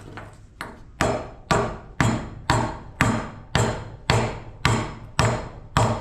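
Hammer striking a cast-aluminium LED light housing in steady blows, about two a second. Each blow is sharp and followed by a brief metallic ring.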